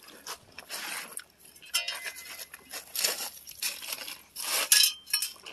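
Loose beach pebbles and cobbles crunching and scraping in several short bursts.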